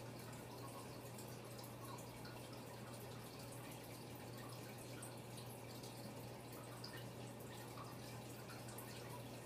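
Faint steady low electrical hum with scattered soft ticks, close to room tone.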